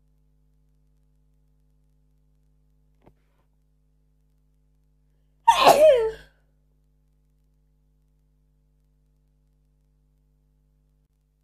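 A person sneezing once, about halfway through: a short, loud burst with a voiced cry that falls in pitch.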